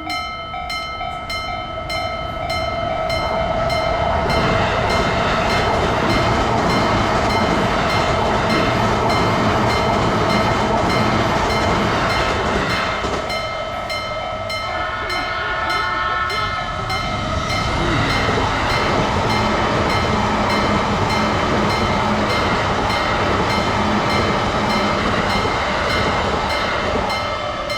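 Japanese level-crossing warning bell clanging (kan-kan) in a steady beat while a train rushes past, twice, with a short dip between. A horn sounds for about three seconds in the middle.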